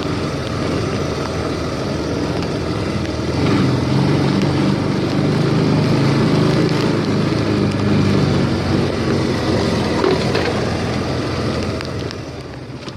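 Small ATV engine working under load through mud and ruts, revving up about three and a half seconds in, holding there, then easing off near the end.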